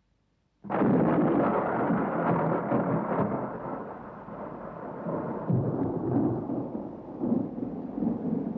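A thunderclap breaking suddenly out of silence under a second in, then thunder rolling on and slowly fading, with rain.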